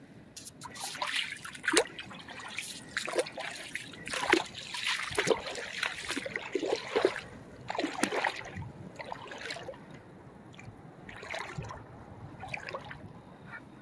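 Water splashing and trickling in small irregular bursts, busy through the first two-thirds and sparser near the end.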